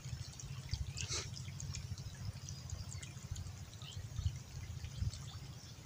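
Faint river water sounds over a steady low rumble, with scattered faint high ticks and a few small chirps.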